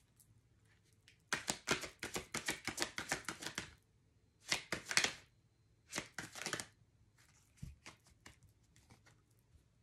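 A deck of oracle cards being shuffled: three bursts of rapid papery flicking, the first and longest lasting over two seconds, then a few faint card taps near the end.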